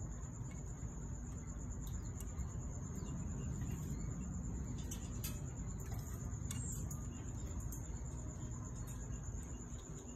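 A cricket trilling steadily at a high pitch over a low rumble, with a few faint clicks near the middle.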